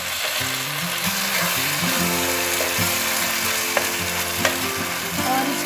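Chilli chicken with capsicum and onion sizzling in tomato and chilli sauce in a frying pan while a spatula stirs it, with a few light clicks of the spatula against the pan.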